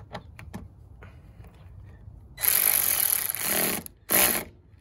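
A tool running on a 10 mm battery terminal nut in two loud bursts, one of about one and a half seconds and a shorter one just after, with a few small metal clicks before.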